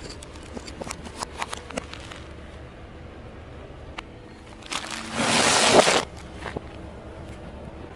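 Plastic disposable lighters cracking and snapping under a car tyre, with a few sharp cracks over the first two seconds. About five seconds in, a bag of crisps is crushed under the tyre: a loud rush of crunching that swells and cuts off sharply, as the audio is played in reverse.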